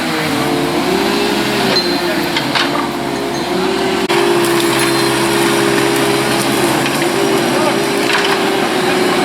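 Chainsaw running at high revs, cutting through wood from storm-felled trees. Its pitch sags and recovers several times as the chain bites and bogs under load.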